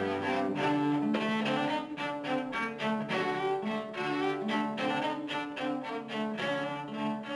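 Instrumental background music, a melody moving from note to note.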